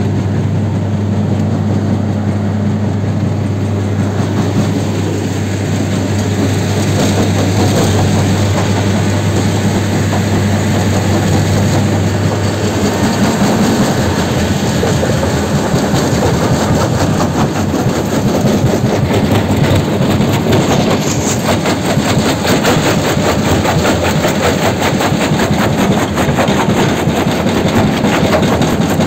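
Mobile rubble crusher running with a steady low engine hum; just before halfway the hum gives way to a fast, dense rattling of concrete rubble over the vibrating feeder's steel grizzly bars and into the crusher.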